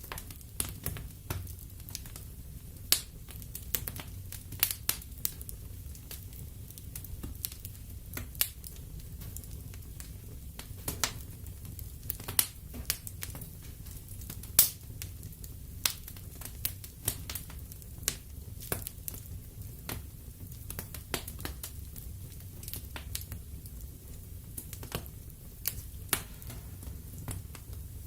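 Wood fire burning in a fireplace: irregular sharp crackles and pops from the burning logs over a steady low rumble of the flames.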